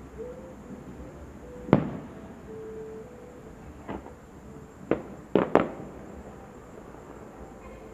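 Aerial fireworks shells bursting: five sharp bangs. The loudest comes about two seconds in, a smaller one follows, and then three come in quick succession near the middle.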